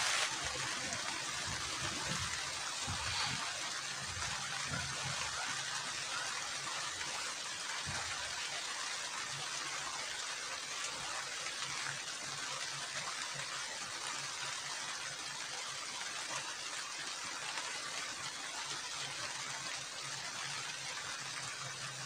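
Heavy rain falling steadily on the shelter, heard from inside, a constant even hiss. A few soft knocks in the first seconds as someone settles down on a sleeping mat.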